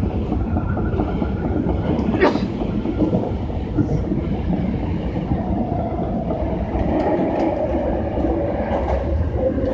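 Osaka Metro 22 series subway train running, heard from inside the car: a steady rumble with a few sharp clicks from the wheels and rails. A steady whine comes in about halfway through.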